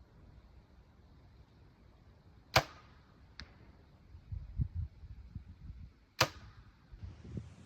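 Two arrows shot from a bow about three and a half seconds apart, each release a sharp snap of the string. A faint smack follows the first shot under a second later as the arrow strikes the target some 60 yards away. Low dull thumps of handling come between the shots.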